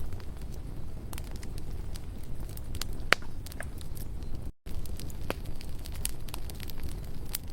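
Wood campfire burning, with irregular sharp crackles and pops over a steady low rumble; the loudest pop comes about three seconds in. The sound cuts out completely for a split second a little past halfway.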